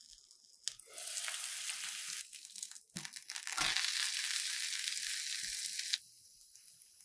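Shredded potato frying in oil in a nonstick pan, sizzling. There is a click about a second in, after which the sizzle grows louder, and a knock about three seconds in as a spatula presses and turns the potato, with the sizzle loudest just after. About six seconds in it drops suddenly to a quieter sizzle.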